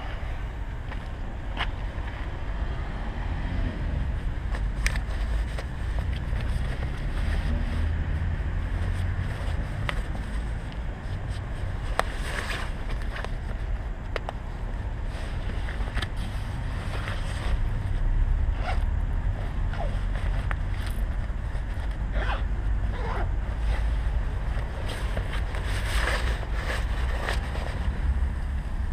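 Street ambience: a steady low rumble of distant traffic and wind on the microphone, with scattered clicks and rustles from handling.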